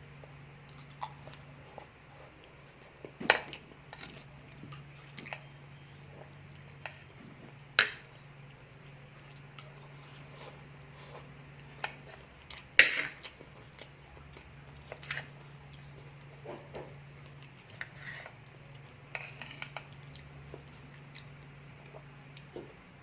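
A person eating close to the microphone: chewing, with scattered sharp clicks and taps, three of them much louder than the rest, over a faint steady hum.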